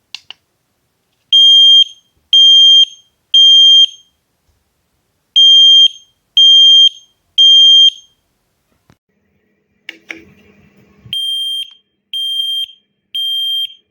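XINDUM mini smoke alarm sounding its alarm: a high, piercing beep in groups of three, the standard temporal-three fire alarm pattern, repeated three times with short pauses between. The last group is quieter and comes after a click and some handling rustle.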